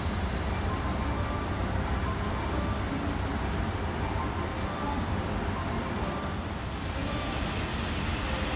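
Diesel train engines idling at a station, a steady low rumble.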